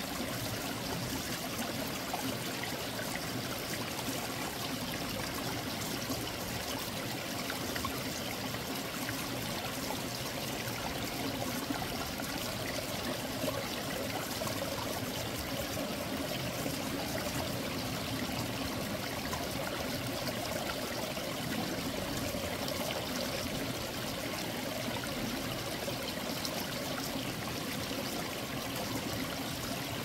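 Mountain valley stream flowing steadily, with a clear, bubbling babble like marbles rolling.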